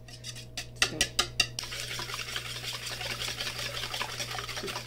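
Wire balloon whisk beating an egg mixture in a stainless steel bowl. A few separate clinks of the wires against the bowl come first, then, about a second and a half in, fast steady whisking with the wires ticking rapidly against the metal.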